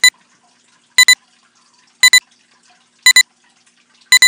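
Countdown-leader sound effect: a short, high electronic double beep once a second, five times, with faint crackle between the beeps.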